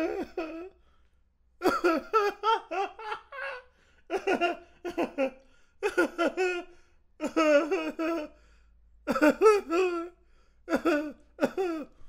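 A man laughing in a string of separate short laughs, about six, each a second or so of quick 'ha-ha' pulses with brief silent pauses between.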